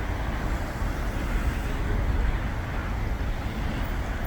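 Steady vehicle noise with a low engine rumble: a Hyundai New County bus running amid street traffic.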